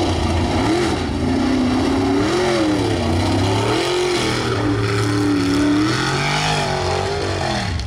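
Mud truck engines revving hard, the pitch rising and falling again and again.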